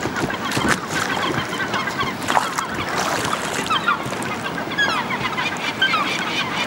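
River rapids rushing steadily, with short high-pitched cries or calls scattered through the rush.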